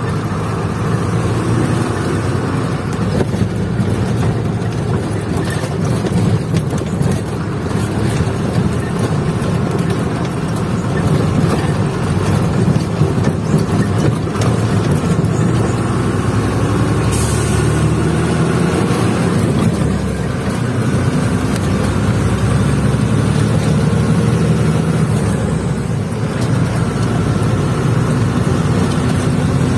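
Truck's diesel engine running under way, heard from inside the cab, its pitch shifting now and then with the throttle. A brief high hiss a little past halfway through.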